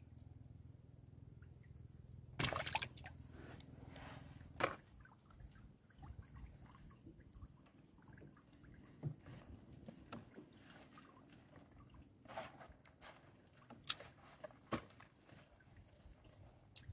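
Fishing net being hauled by hand into a small outrigger boat: water drips and splashes off the wet net, with scattered knocks and rattles against the boat. The loudest is a clattering knock about two and a half seconds in, followed by a sharp knock about two seconds later. A low steady hum stops at about the same time.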